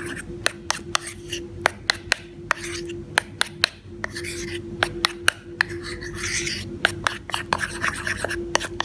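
A small metal spoon stirring thick cake batter in a plastic bowl: irregular sharp clicks of the spoon against the bowl's side, a few a second, with soft scraping in between.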